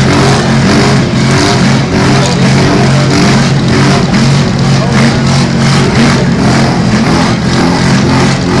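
Demolition derby cars' engines running and revving, a loud continuous sound with pitch rising and falling.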